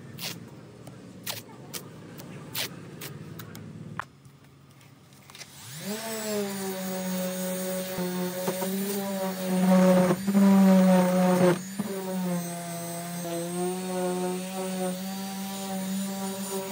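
A few sharp clicks and rustles as masking tape is torn and laid on a car bumper, then a random orbital sander with a dust-extraction hose spins up with a rising whine about five seconds in and runs at a steady hum, sanding down the scuffed plastic bumper. The sander gets louder for a couple of seconds partway through.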